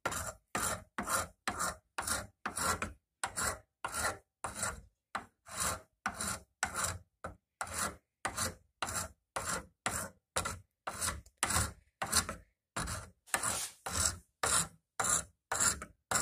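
A hand file rasping back and forth across a wooden hammer handle in steady, even strokes, about two a second. It is shaping the handle by hand, rounding over and tapering its edges.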